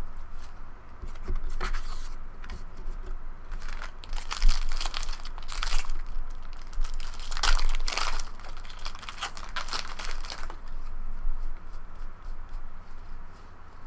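Wrapper of a trading-card pack being torn open and crinkled by hand, in a run of irregular rustling, crackling bursts that stop about ten seconds in.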